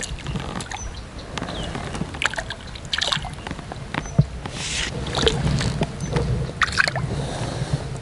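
Hooked crucian carp splashing and sloshing at the water's surface as it is played on a pole rod and drawn in, in irregular bursts, with scattered clicks and rustles of tackle being handled.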